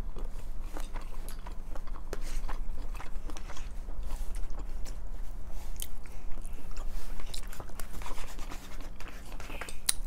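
People chewing and eating spaghetti with sausage, with scattered small clicks and scrapes of metal forks on paper plates. A steady low hum runs underneath.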